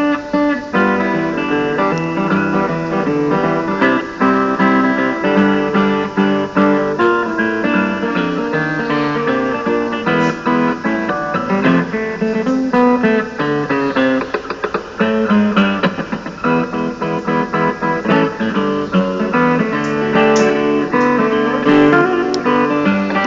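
Acoustic guitar playing, a continuous run of plucked notes and chords.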